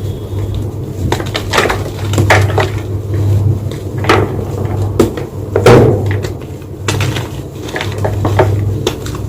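White gym chalk crunching and crumbling in a string of separate sharp crunches, irregularly spaced about a second apart.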